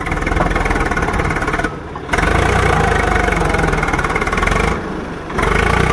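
Swaraj 744 XT tractor's three-cylinder diesel engine running steadily while hauling a trolley heaped with soil. Twice the sound drops abruptly for about half a second.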